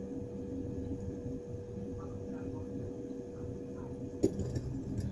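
Steady low kitchen hum with a thin steady tone, and a light tick about four seconds in.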